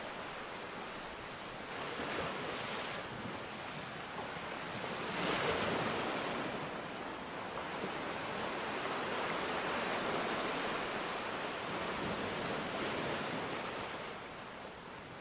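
Sea waves breaking and washing up the shore, a steady rush that swells several times and is loudest about five seconds in, easing near the end.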